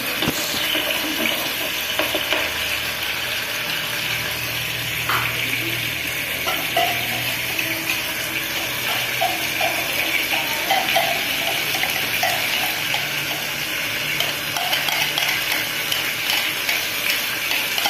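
Sofrito of onion, peppers and garlic paste sizzling steadily in hot oil in a frying pan, stirred now and then with a metal spoon.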